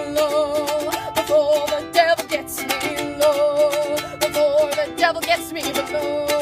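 A strummed acoustic string instrument accompanies a song's last sung notes, which are held with vibrato. Near the end the strumming stops on a final chord left ringing.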